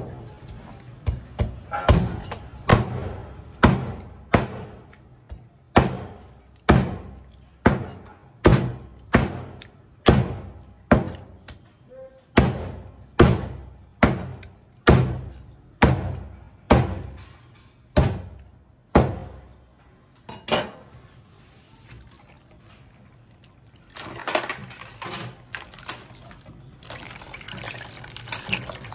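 A cleaver chopping porcupine pufferfish meat into chunks on a thick plastic cutting board: about two dozen steady chops, a little under a second apart, that stop about 20 seconds in. In the last few seconds, running water from the sink tap.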